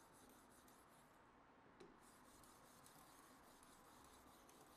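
Very faint rubbing of an oil-lubricated fine diamond sharpening stone stroked along a Vanadis 10 steel knife edge in a guided sharpener; barely above silence.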